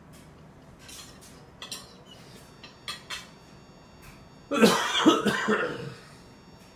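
A few small clicks of fingers against a porcelain bowl, then a toddler coughing several times in a burst lasting about a second and a half, starting about four and a half seconds in, while she is eating.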